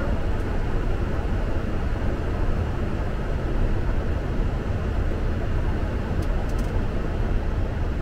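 Steady low cockpit noise of a Boeing 747 in flight: airflow and engines heard on the flight deck. A few faint clicks come a little after six seconds in.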